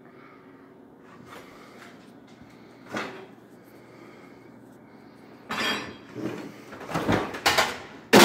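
Kitchen cupboard doors being handled: a single knock about three seconds in, then several knocks and thuds over the last few seconds, the loudest a sharp bang near the end.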